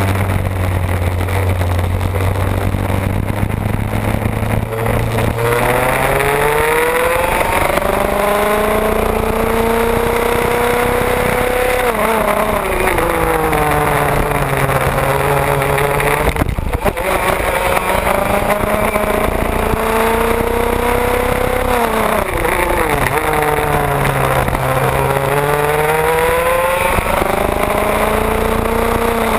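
IAME two-stroke kart engine heard onboard at race pace: low and steady for the first few seconds, then revving up the straights and dropping each time it lifts for a corner, over and over.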